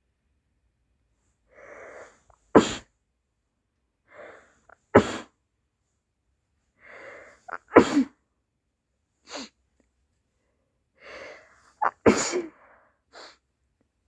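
A person sneezing four times, set off by dust. Each sneeze starts with a short catching in-breath and ends in a sharp, loud burst. The last one comes as a quick double.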